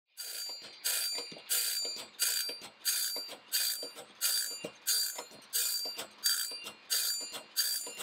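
Electric bandsaw-blade sharpener grinding a sawmill band blade tooth by tooth. Each pass of the grinding wheel gives a sharp, high metallic ringing grind that fades, repeating evenly about one and a half times a second as the blade is stepped on to the next tooth.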